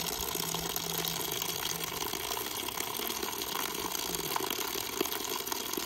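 Steady rush of water running from a tap, with a few faint clicks.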